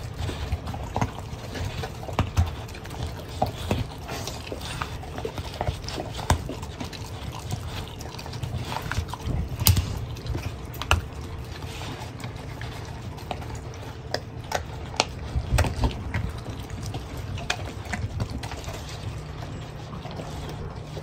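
Mastiff puppy chewing a piece of raw chicken: wet smacking and gnawing with irregular sharp cracks, over a steady low hum.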